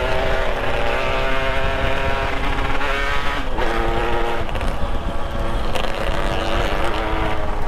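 Motorcycle engine running under load, its pitch wavering with the throttle and dropping sharply about three and a half seconds in before picking up again, over a low rumble.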